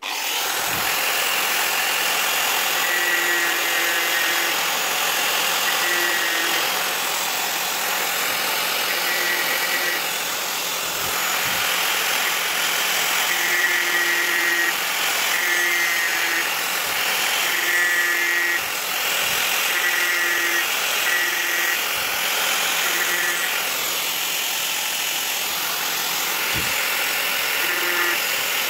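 Electric angle grinder running with a sanding disc worked against a wooden knife handle: a loud, steady whine, with a pitched hum that comes and goes in short spells as the disc presses on the wood.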